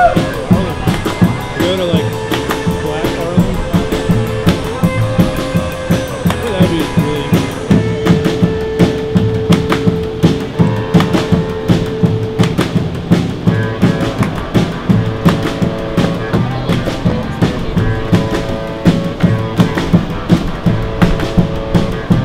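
Live street band music: a drummer on a small kit of drum and cymbal keeping a steady beat, with an upright bass and other sustained instrument tones over it.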